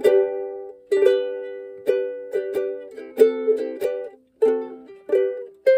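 Ukulele strummed and picked in chords, each chord ringing and fading, with a brief pause about four seconds in. Played inside a car's cabin.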